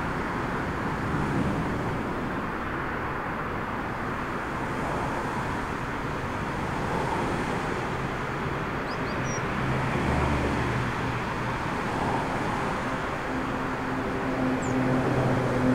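Steady jet-engine roar from a taxiing Airbus A380, with a low droning tone joining in the second half.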